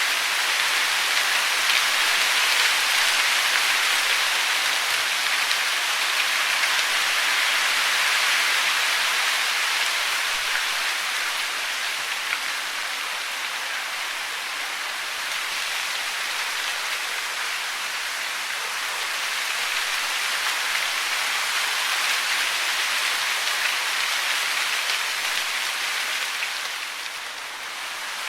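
Steady hiss of falling water, even and unbroken, with no birdsong standing out; it softens briefly near the end.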